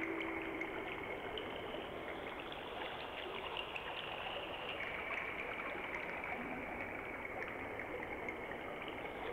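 A steady rushing, trickling noise like running water, with faint crackles through it.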